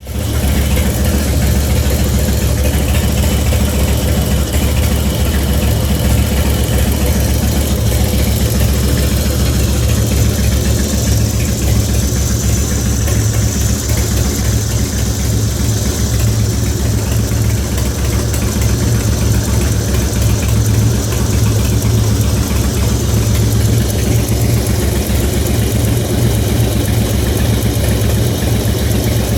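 2004 Harley-Davidson FXST Softail's air-cooled V-twin engine idling steadily, with the ticking noise that began after its oil and fluids were changed to Harley Syn3 synthetic; the owner does not know its cause.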